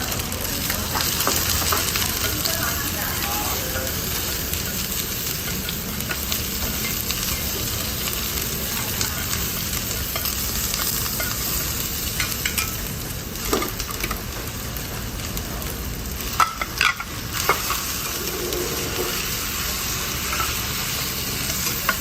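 Meat being stir-fried: a steady sizzle, with a few sharp clacks in the second half.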